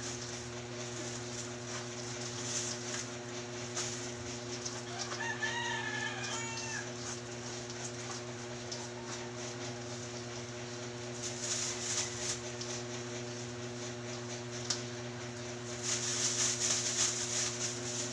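A rooster crows once, about five seconds in, over a steady low hum. Rustling comes in patches later on.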